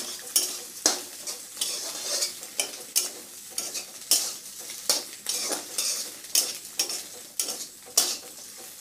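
Spatula scraping and knocking against a steel kadai as Maggi instant noodles are stir-fried, in irregular strokes about twice a second, over the hiss of the noodles sizzling in the pan.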